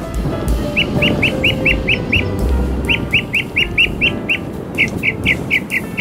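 Northern mockingbird singing: three runs of short, repeated chirping notes, about five a second, each run of roughly seven notes. A low steady rumble lies beneath.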